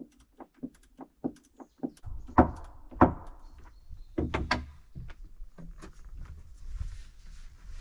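A run of quick light clicks, about five a second, then loud wooden knocks: two sharp ones about half a second apart and a tight cluster a second later, as a freshly built wooden table is handled and pressed on a plank deck.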